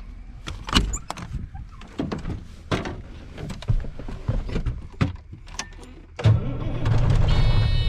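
Clicks, clunks and knocks of a door and keys in a semi truck cab, then the truck's diesel engine starts about six seconds in and settles into a steady idle. About a second after the start, a steady high-pitched tone joins in.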